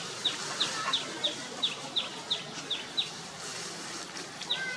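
A bird calling in a steady series of short high chirps, each dropping in pitch, about three a second; the chirps pause about three seconds in and start again near the end.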